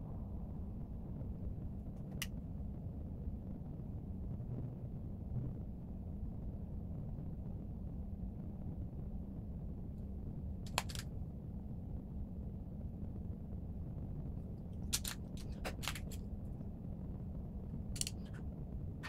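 Steady low room hum with a handful of small, sharp clicks scattered through it: one about two seconds in, one about eleven seconds in, a quick cluster around fifteen to sixteen seconds and another near the end.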